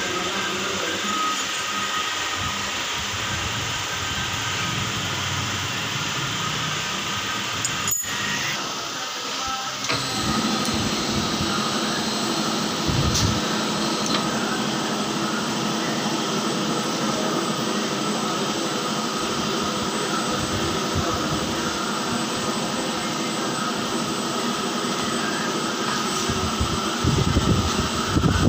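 Small horizontal milling machine running, its disc cutter machining the side-lock slot of a steel surgical forceps. A steady mechanical whine and hum, with a single click about eight seconds in and a fuller, louder running sound from about ten seconds on.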